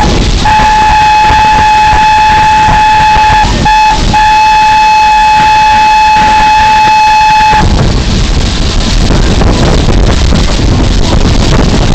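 Steam locomotive whistle blowing one long, loud note with a few short breaks, cutting off about seven and a half seconds in. It is followed by a rough rumble of wind on the microphone.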